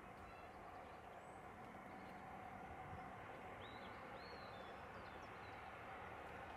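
Faint outdoor ambience: a steady hum of background noise, with a few short, high bird chirps about halfway through.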